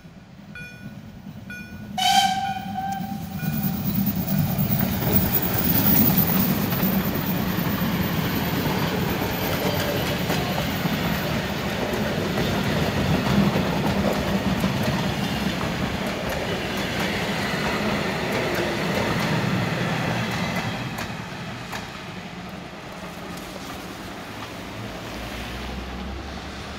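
A level-crossing warning signal beeping about twice a second, cut off about two seconds in by one loud blast of a Ty2 steam locomotive's whistle, about a second and a half long. Then the steam train and its passenger coaches pass close by in a steady rumble that eases off near the end.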